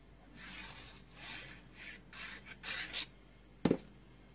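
A glue stick rubbed across card stock in several quick strokes. About three and a half seconds in comes one sharp knock, the loudest sound.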